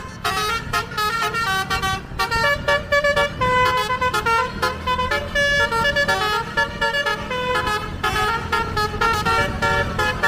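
Indonesian bus 'telolet basuri' musical horn, driven by a DAV module, playing a fast tune of quick, stepped notes. A low rumble runs steadily underneath.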